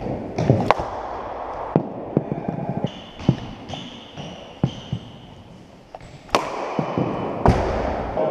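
Cricket balls and bats knocking in indoor cricket nets: a scatter of sharp cracks and thuds in a large sports hall, the two loudest about six and seven and a half seconds in.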